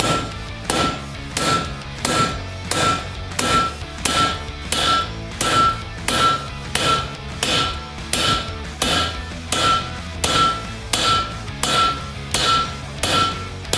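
Hammer blows on metal at a steady pace, about three every two seconds, each with a short clear ring: peening over hot rivets to join the ends of a steel barrel hoop.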